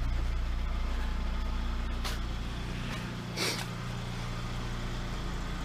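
Volkswagen Golf Rallye's supercharged 1.8-litre G60 four-cylinder idling steadily, its exhaust not smelling rich. A brief hiss comes about halfway through.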